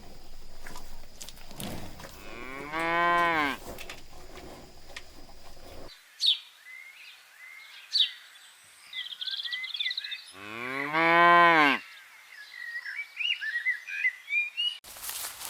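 A cow mooing twice, two long calls that each rise and then fall in pitch, the first about two and a half seconds in and the second about ten seconds in. Between them, birds chirp.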